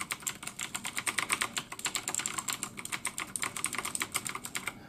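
Typing on a mechanical keyboard with Gamdias Blue clicky switches: a fast, steady run of sharp key clicks, several a second, stopping just before the end. The switches have a heavier sound than Cherry MX Blues and a less crisp key travel.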